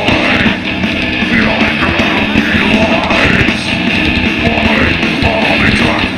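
Death metal band playing live through a festival PA, heard from within the crowd: heavy distorted electric guitars over drums, loud and continuous.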